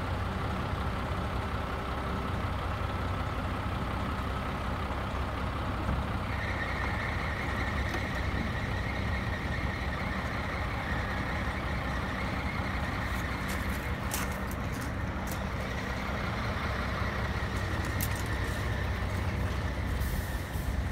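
Scania truck running steadily while its folding loading ramps are lowered. A steady high whine joins about six seconds in, and a few sharp clicks come in the second half.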